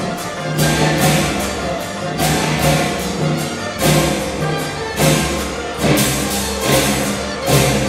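Chinese orchestra playing loudly, large drums, cymbals and gongs striking about once a second over sustained notes from plucked and bowed Chinese strings.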